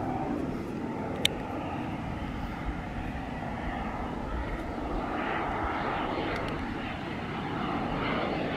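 Jet engine of a BAE Hawk trainer approaching with gear down: a steady rushing rumble with a whine that strengthens over the last few seconds as the jet comes closer. A single sharp click about a second in.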